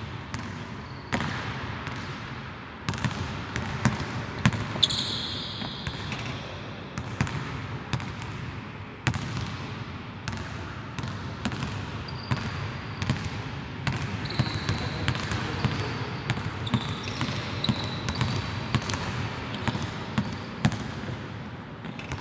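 A basketball bouncing on a hardwood court, a long irregular run of sharp thuds that echo through a large empty arena, with short high squeaks from sneakers on the floor now and then.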